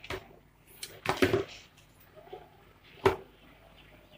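Knocks and clicks of a lightweight aluminium tripod's legs and black plastic leg-lock clamps being handled and opened out: a short knock at the start, a cluster of louder knocks about a second in, and one sharp click about three seconds in.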